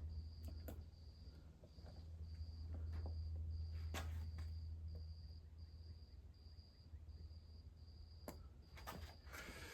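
Quiet shop room tone: a steady low hum, with a thin high chirp repeating evenly about once a second and a few light clicks and taps, the clearest about four and eight seconds in and a cluster near the end.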